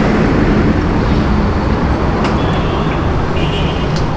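Roadside traffic noise: vehicle engines running close by with a steady low hum, and a couple of faint, brief high-pitched tones midway.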